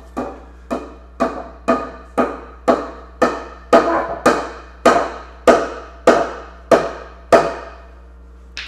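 A mallet hammering a wooden foot onto a glued joint of a wooden kayak rack: about fourteen strikes, roughly two a second, each ringing briefly in the wood, with a last softer tap near the end.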